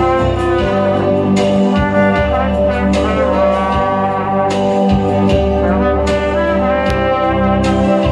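Trumpet playing a slow melody in long held notes over a backing track with bass and regular drum beats.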